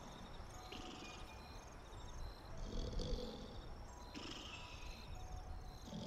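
Soft, low, breathing-like sound, purring or snoring in character, that swells about every three seconds. Faint, high, pulsing tones sit over it, above a steady background hiss.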